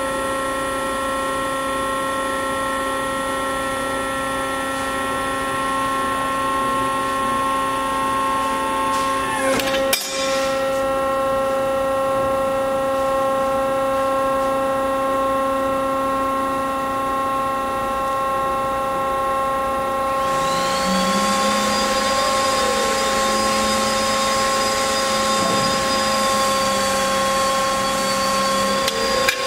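Accurpress 71008 100-ton hydraulic CNC press brake running with its hydraulic pump motor giving a steady hum and whine. There is a brief knock about ten seconds in. About two-thirds of the way through, a louder hiss and a higher whine join in, rising and then holding steady.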